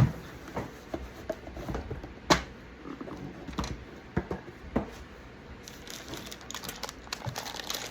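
Hands handling a cardboard kit box and its contents: scattered light knocks and taps, then fine crinkling of packaging from about six seconds in.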